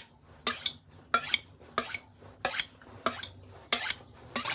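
Kitchen knife blade drawn in quick strokes along a steel honing rod, giving the edge a finishing touch. About seven short metallic scrapes come at an even pace, roughly two thirds of a second apart.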